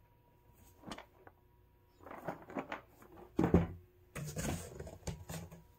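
Cardboard boxes being handled: scraping and rustling of cardboard, with a sharp knock about three and a half seconds in as a box is set down.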